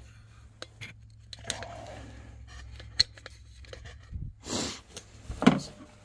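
Scattered small metallic clicks, taps and scrapes of hand work with bolts and hoses on a mini skid steer's frame, with a short rustling burst about four and a half seconds in and a sharp click near the end, over a faint low hum.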